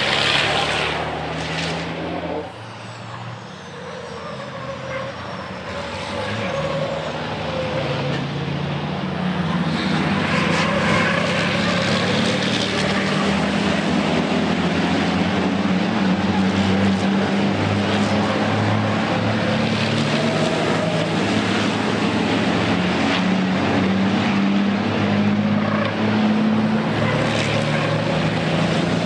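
Racing trucks' diesel engines running hard on a race circuit: a steady engine drone that dips a few seconds in, then grows louder and holds.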